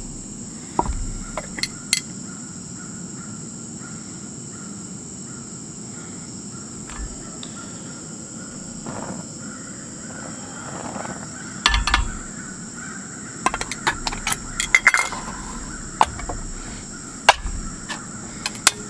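Scattered clinks and knocks of a metal frying pan and a food can being handled beside a lit propane camp stove, with a spoon clicking against the can near the end. A steady high insect drone runs underneath.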